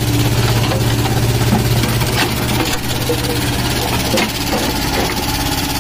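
Tata Hitachi mini excavator's diesel engine running steadily, with a few short clanks scattered through as the arm and bucket work.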